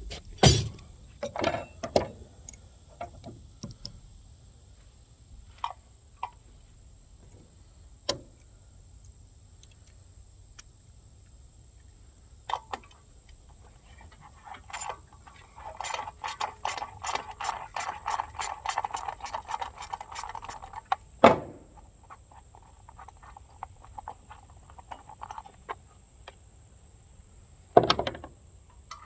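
Hand tools clicking and clanking on metal, with a socket ratchet clicking rapidly, about five clicks a second, for several seconds in the middle, and a few sharp knocks.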